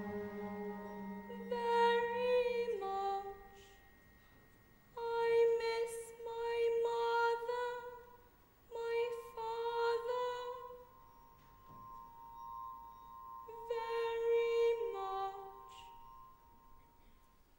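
A boy treble singing slow, sustained phrases of an opera lament, four phrases with pauses between them, over a thin held tone; the voice fades away near the end.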